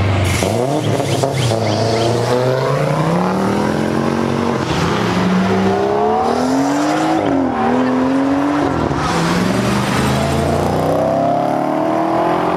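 Cars accelerating away one after another, engines revving hard: one engine climbs in pitch over several seconds with a gear change around the middle, and another revs up near the end.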